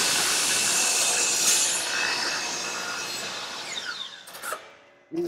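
Electric miter saw at full speed cutting slowly through a premium pine board, then switched off, its blade winding down with a falling whine until it goes quiet about four and a half seconds in. A short low thud comes right at the end.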